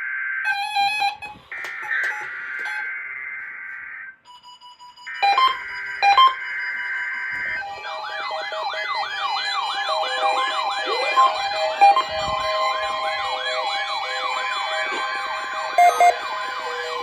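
NOAA Weather Radio SAME digital header for a Required Weekly Test: three harsh, buzzing data bursts with short gaps between them. About seven and a half seconds in, several weather alert receivers set off by the signal start sounding together, with warbling siren tones that rise and fall about twice a second over steady beeps.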